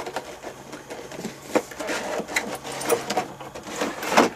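Cardboard and plastic packaging being handled: irregular rustling, scraping and light knocks, with a louder crackle about four seconds in.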